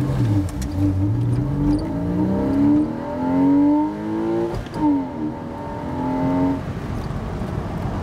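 Porsche 986 Boxster's 2.7-litre flat-six accelerating, heard from inside the cabin. The revs climb steadily for about four seconds, drop at a gear change a little past halfway, climb again, then fall away near the end.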